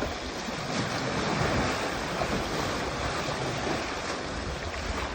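Sea waves washing and wind buffeting the microphone: a steady rushing noise that swells slightly about a second and a half in.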